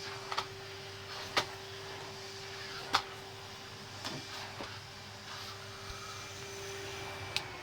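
Vacuum cleaner running with a steady motor hum and hiss while it cleans, with a few sharp clicks and knocks about half a second, one and a half, three and seven and a half seconds in.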